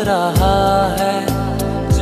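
DJ remix of a Hindi film love song: a melody with vibrato over a steady beat, with deep bass drum hits that slide down in pitch.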